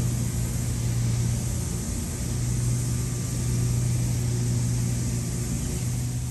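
Steady low machine hum with an even hiss over it, dipping slightly about two seconds in.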